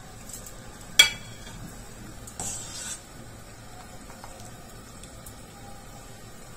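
A pot of water at a rolling boil, bubbling steadily, while a slotted metal skimmer lifts dumplings out. There is a sharp clink about a second in and a short, softer noise around two and a half seconds in.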